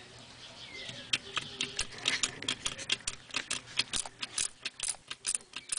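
A rapid run of sharp, irregularly loud clicks, several a second, starting about a second in.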